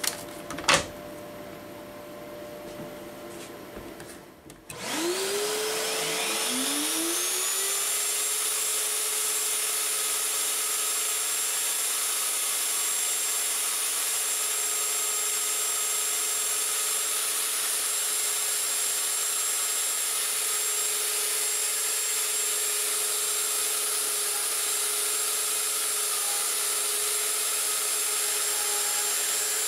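A click just under a second in; then, about five seconds in, the router spindle and the vacuum on the dust shoe switch on one after the other and spin up with rising whines. They settle into a steady high whine and hiss as the home-built CNC router cuts acrylic sheet.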